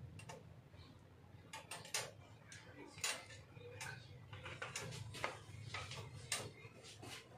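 Scattered light clicks and knocks, a dozen or so at irregular spacing, over a low steady hum.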